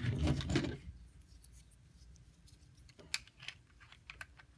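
Hard plastic parts of a transforming robot action figure clicking and rubbing as they are handled and pegged together. A burst of rustling and clicking fills the first second, then a few sharp separate clicks come near the end.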